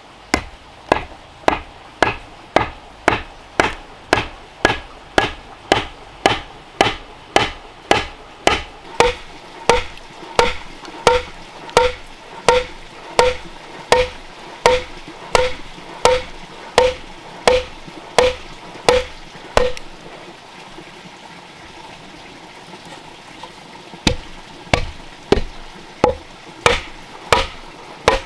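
Steady hammer blows, about one every 0.7 seconds, driving a wedge into the split end of a wooden leg's tenon set through a thick wooden slab. After about nine seconds each blow rings with a clear pitched tone. The blows pause for about four seconds after some twenty seconds, then start again.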